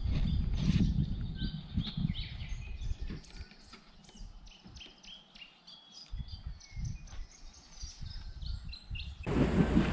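Birds chirping: a quick run of short high notes at changing pitches, over a low rumble of wind on the microphone that dies away after about three seconds. Near the end it cuts abruptly to loud wind noise on the microphone.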